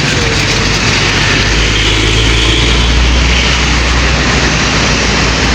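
An intercity bus driving past close by: engine rumble and road noise, the low rumble loudest about two to three seconds in.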